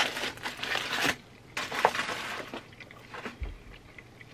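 Aluminium foil crinkling as it is handled, for about a second, then a second shorter burst of crinkling; after that it is quieter, with faint clicks.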